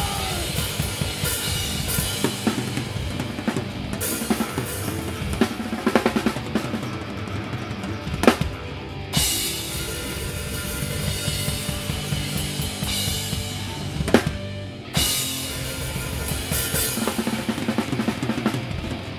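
Live rock drum kit played hard, with fast bass drum, snare and cymbal work. It drops out briefly twice, near nine and fifteen seconds in, and comes back each time with a loud hit.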